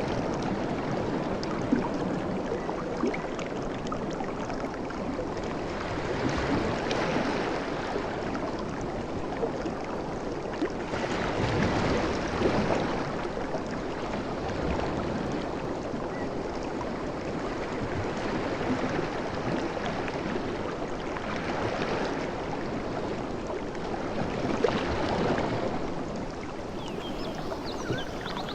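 Waves washing onto a beach: a steady wash of water that swells and recedes every few seconds, with a few small sharp splashes.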